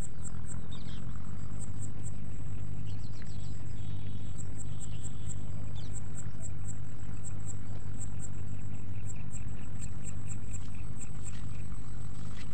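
Insects chirping in short, high-pitched pulses over a steady low hum.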